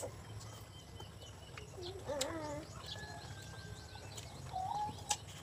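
Quiet rural yard background: faint chirps of small birds and a short chicken call, with a few sharp clicks.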